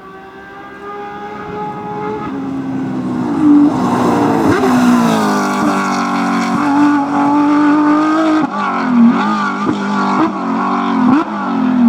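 Porsche racing car's flat-six engine at full throttle, growing louder as it approaches and sweeping through the revs with gear changes. Near the end the revs dip and flare several times in quick succession: lifting and blipping the throttle on downshifts under braking.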